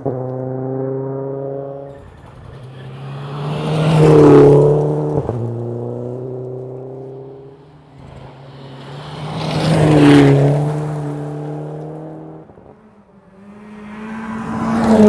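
Rally cars passing one at a time at speed on a gravel stage, three times, about four, ten and fifteen seconds in. Each engine note climbs to a loud peak with a rush of tyre and gravel noise as the car goes by, then drops in pitch as it moves away.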